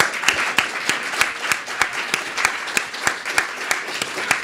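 Audience applauding, with individual sharp claps standing out above the rest.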